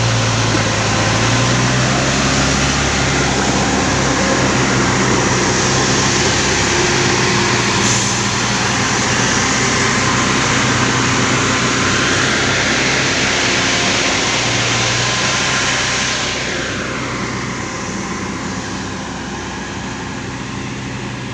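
Heavy logging-truck diesel engines running hard under load as one truck tows another up a steep climb. The sound is loud and steady, then eases off and drops in level about three-quarters of the way through.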